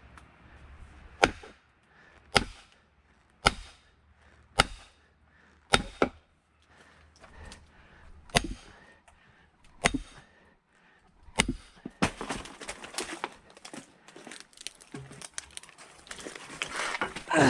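Splitting firewood: about nine sharp, evenly spaced blows, roughly one a second, of a hammer driving a splitting wedge into a log. Then several seconds of crackling and rustling, with a louder knock near the end.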